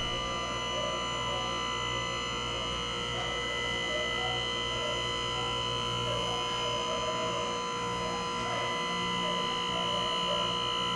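Steady electrical-sounding hum made of several fixed tones, with faint wavering sounds beneath it.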